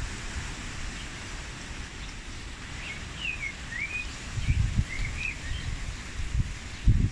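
Wind gusting across the microphone, with rumbling buffets about four and a half seconds in and again near the end, over a steady rush of wind through the garden foliage. A small bird chirps a few short rising and falling notes in the middle.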